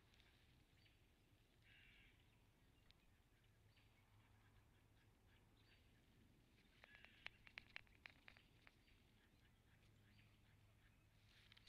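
Near silence: faint outdoor background hiss, with a quick run of several small sharp clicks about seven seconds in.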